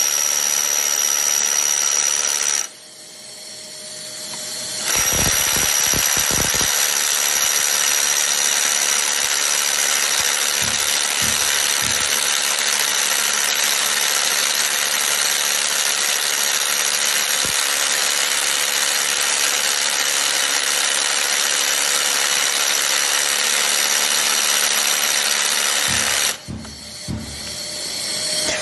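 Rotary hammer drill with a carbide masonry bit boring into concrete through a Bosch HDC200 dust-extraction attachment, running steadily with a high whine. It stops briefly about three seconds in, starts again about two seconds later, and stops near the end.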